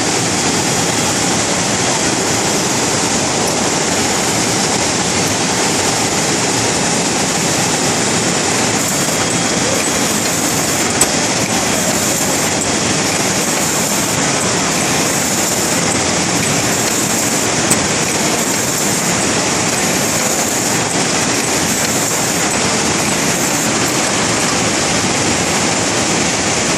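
Two-lane rotary sauce pouch-packing machine running, a steady even mechanical noise, with two single sharp clicks partway through.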